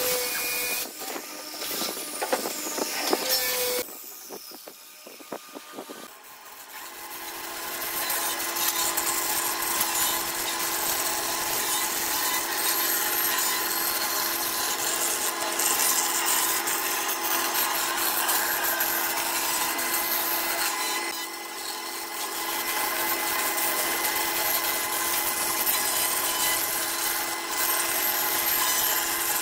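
Band saw running steadily, its narrow blade cutting a curved line through a cardboard template. Before the saw comes in, a few knocks from timber beams being handled.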